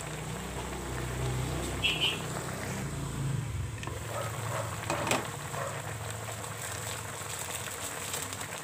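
Chicken adobo with potatoes simmering and bubbling in a pan over a steady low hum. A sharp clink comes about five seconds in as the glass lid is handled and lifted off.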